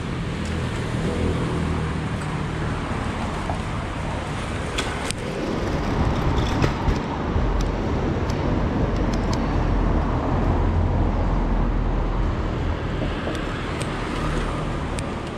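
Street ambience heard from a moving bicycle: a steady low wind rumble on the microphone over road traffic going by, with a few light clicks.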